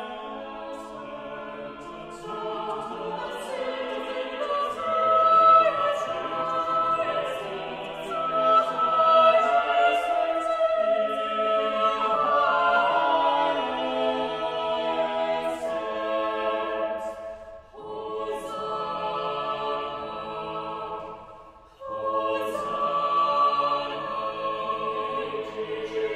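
Choir singing a slow worship song with long held notes. The singing breaks off briefly twice in the second half, between phrases.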